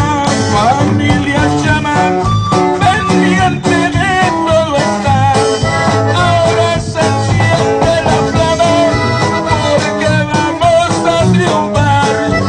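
Lively music with a steady bass line and a melody on top.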